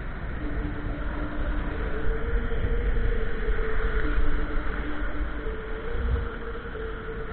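Wind buffeting the microphone over a continuous wash of water, with a steady two-note hum that fades in and out.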